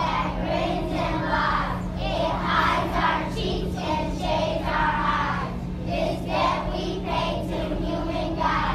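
A group of young children's voices speaking in unison, reciting a poem together as a chorus.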